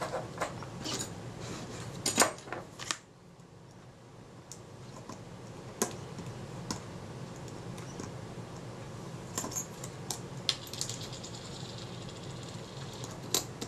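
Small metal parts of a Synchro-Compur leaf shutter being handled with the fingers: scattered light clicks and metallic clinks, a quick cluster about two seconds in, then sparse single taps.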